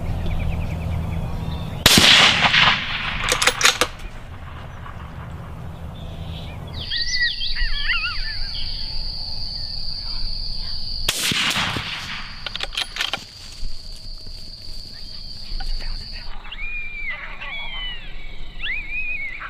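Rifle shots: one loud crack with a rolling echo about two seconds in, a few more sharp cracks about a second and a half later, and another shot with a trailing echo past the middle. High, wavering calls run through the second half.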